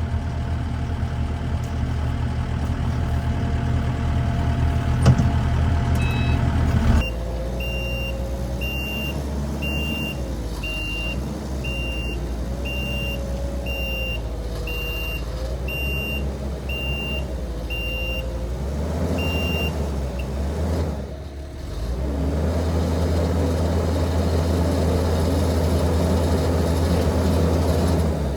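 Diesel engines of a tractor and a skid steer running under load during a pull out of deep mud. For about twelve seconds in the middle, a reversing alarm beeps steadily about once a second.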